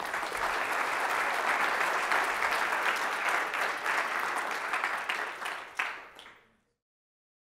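A roomful of people applauding: dense clapping from many hands that thins out and dies away near the end.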